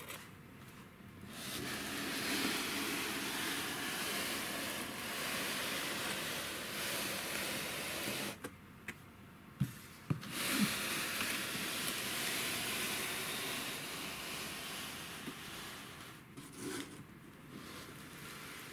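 Radio-controlled car's electric motor and drivetrain whirring under throttle in two runs, about seven seconds and then about six, with a few knocks in the short pause between. The car is being run up to check that its front tyres, which swell at speed, no longer rub the cardboard body.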